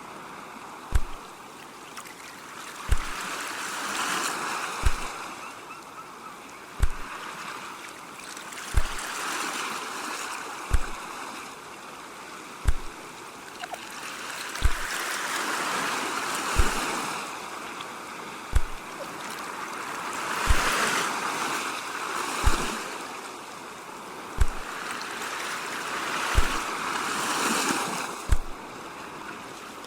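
Ocean waves washing in and out in slow swells, under a regular low thump about every two seconds that is louder than the surf.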